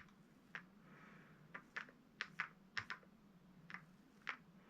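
Faint, irregular light clicks and ticks from a small foam paint roller being run lightly over the raised lettering of a metal street sign, over a low steady hum.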